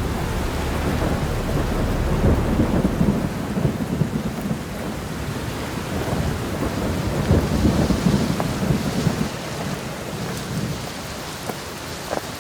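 Thunderstorm sound effect: steady rain with rolling thunder rumbles that swell about two seconds in and again around eight seconds, easing off toward the end.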